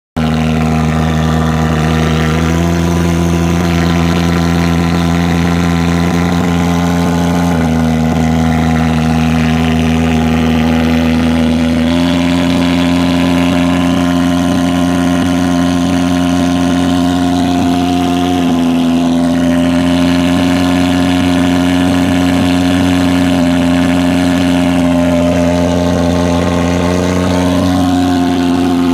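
Superfogger thermal fogging machine's pulse-jet engine running with a loud, steady buzzing drone. Its pitch steps slightly a few times and rises a little near the end.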